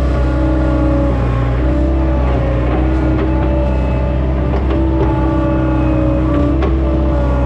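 Diesel engine of a farm machine, likely a skid steer or tractor, running steadily under load, its pitch drifting slightly, with a few light knocks and clanks.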